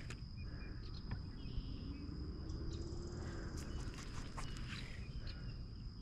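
Faint outdoor ambience: a low steady rumble with a thin, steady high-pitched tone and scattered small clicks and taps.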